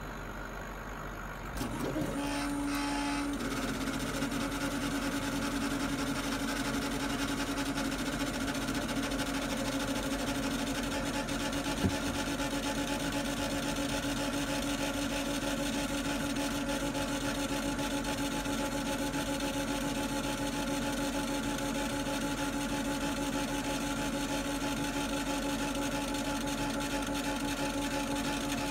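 A 40 W CO2 laser cutter raster-engraving MDF: its motors drive the head back and forth with a steady whine that starts about two seconds in and holds, over a constant machine hum. One sharp click about twelve seconds in.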